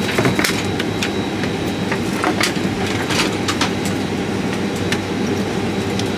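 Steady rumble and hum of a Boeing 737 MAX's cabin air systems in the galley. Scattered light clicks and taps come from plastic cups and a plastic water bottle being handled.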